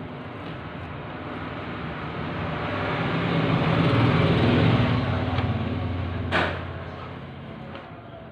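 A motor vehicle passing by: its engine and road noise swell to a peak about four seconds in and then fade, with a single sharp knock shortly after.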